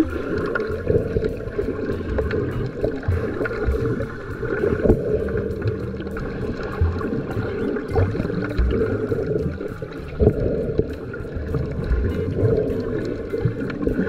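Muffled sea water heard from below the surface: a steady churning, gurgling noise with irregular low knocks.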